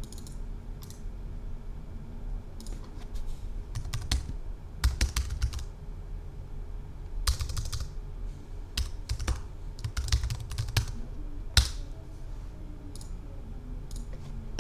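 Typing on a computer keyboard in irregular bursts of keystrokes with short pauses between them, entering a folder name and a file path, with one sharper click a little before the end. A steady low hum runs underneath.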